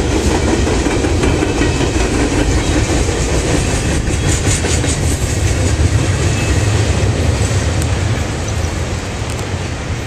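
Freight train cars rolling past close by: a steady rumble of steel wheels on rail with clicks at the rail joints. It eases off slightly near the end as the last cars pull away.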